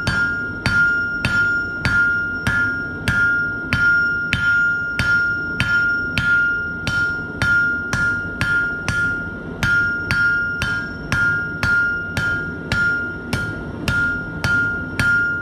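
Hand hammer striking hot steel on an anvil in a steady rhythm of about three blows a second, each blow leaving the anvil ringing with a clear high tone. The blows are drawing down the stem of a forged leaf.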